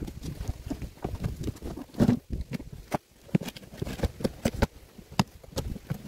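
Cardboard box being opened and its contents handled: irregular knocks and taps, loudest about two seconds in.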